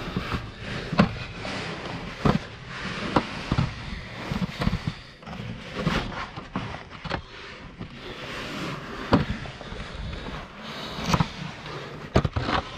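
A caver clambering through a narrow rock passage: irregular scuffs, scrapes and sharp knocks of boots and gear against rock, over a steady rustle of clothing and movement.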